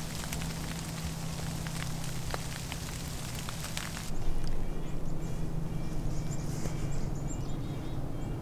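Falling snow ticking steadily on dry leaves and branches. About four seconds in, the sound changes abruptly to quieter woods with runs of short, repeated bird calls, over a steady low hum.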